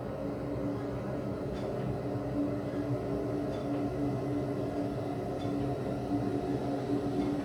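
A 40 kW wall-mounted gas boiler running at full power in hot-water mode: a steady machine hum with a low steady tone through it.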